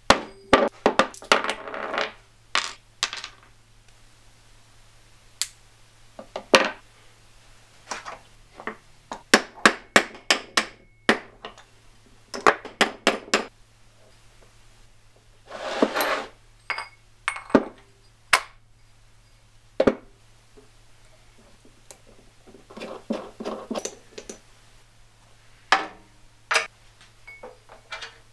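Metal bandsaw parts and hand tools clinking and knocking on a wooden workbench: a string of sharp clicks and clanks with a few short scraping stretches, over a steady low hum.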